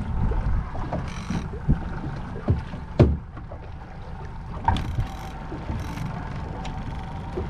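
Small fishing boat at sea: a steady low rumble of wind and water, with several sharp knocks on the boat, the loudest about three seconds in.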